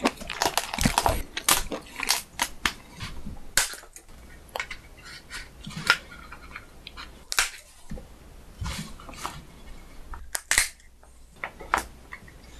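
Sharp, irregular cracks and snips as a cooked lobster's shell is cut with kitchen scissors and broken apart by gloved hands.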